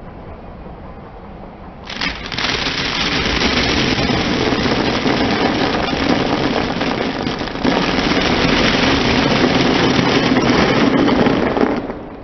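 Dry blocks of instant ramen noodles crackling and crunching as a car tyre rolls over them on concrete: a dense run of snapping starts about two seconds in and stops sharply just before the end. A low engine hum is heard before the crunching starts.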